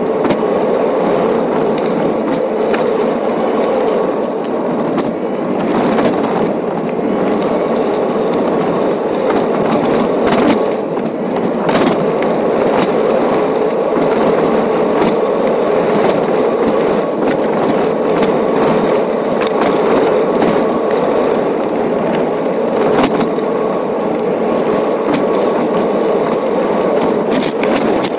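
Car driving over a rough gravel and dirt track, heard from inside the cabin: a steady rumble of tyres and road noise with scattered clicks and cracks of stones under the tyres.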